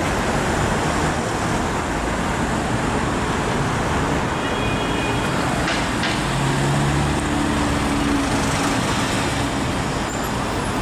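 Steady city road traffic noise, with a vehicle's low engine drone coming up about six seconds in and fading by nine.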